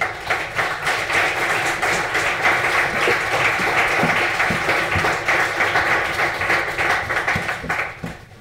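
Audience applauding: dense clapping that starts suddenly and dies away shortly before the end.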